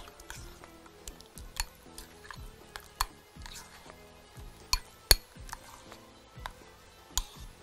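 A spoon knocking and scraping against a glass bowl while stirring thick drained yogurt with garlic, oregano and lemon juice: irregular clinks, the loudest a sharp knock just after five seconds in.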